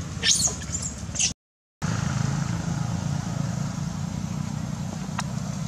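Baby macaques squealing sharply, several short high cries in the first second or so while they wrestle. After a brief cut to silence, a steady low rumble fills the rest.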